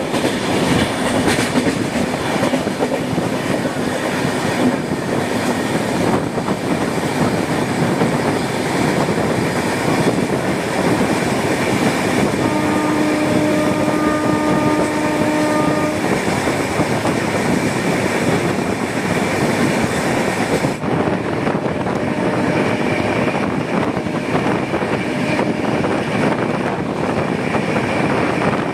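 Express passenger train running at speed, heard from inside a coach: a steady rumble of wheels on the rails. About midway a train horn sounds once for roughly three and a half seconds. The hiss on top turns suddenly duller about two-thirds of the way through.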